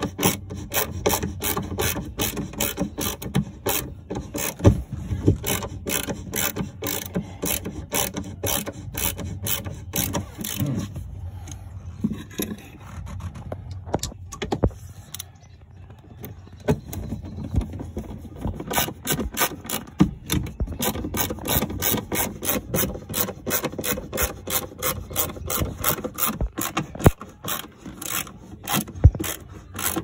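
Ratcheting screwdriver clicking in quick runs as Phillips-head screws are driven into a metal bracket. The clicking stops for several seconds about halfway through, then starts again.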